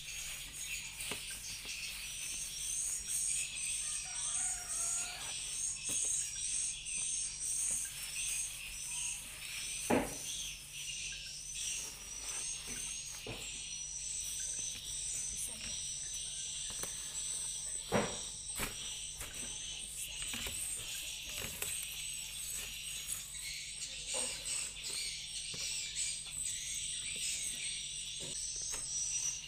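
Steady high chirping of insects, a rapid repeating chirp about twice a second, with two sharp knocks, one about a third of the way in and one a little past the middle.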